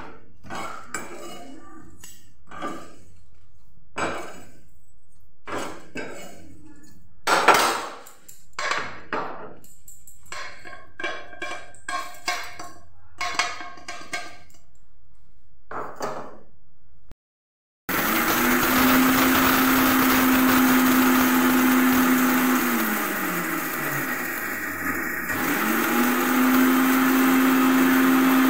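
A utensil clinking and scraping in a metal pan of dry-roasting seeds and dried red chillies, in irregular knocks. After that, an electric mixer grinder runs with a steady whine. About two-thirds of the way in it is switched off and winds down with a falling pitch, then starts again at once and runs steadily.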